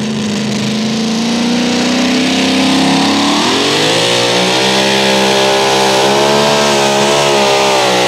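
Super modified two-wheel-drive pulling truck's engine building revs at the start of a pull. The pitch climbs slowly, jumps sharply about three and a half seconds in, then holds high and wavers slightly as the truck takes off with the sled.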